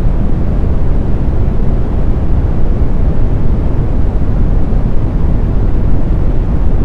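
Steady brown noise: a smooth, deep rushing hiss strongest in the bass, with almost nothing in the highs and no change or pattern.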